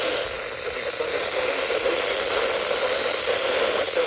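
Radio static: a steady hiss from a radio receiver, with no voice coming through.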